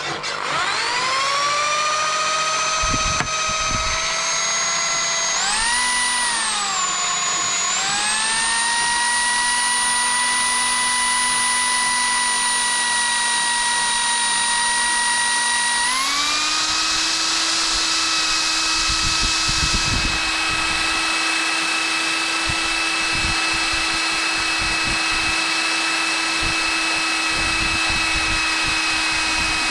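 Corded electric drill boring into a metal workpiece clamped in a vise. The motor whine spins up at the start, wavers up and down in pitch about six to eight seconds in, then steps up to a higher, steady speed about sixteen seconds in.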